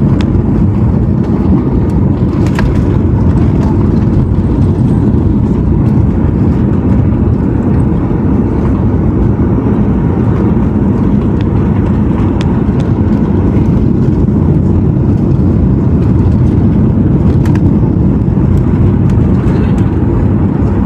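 Cabin noise inside a Boeing 737-800 in flight: a loud, steady rumble of engines and airflow, with a few faint clicks.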